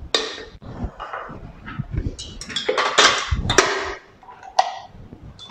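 A spatula scraping and knocking against a stainless steel mixing bowl, and the bowl clanking as it is handled: a run of short, irregular knocks and scrapes, the sharpest one at the very start.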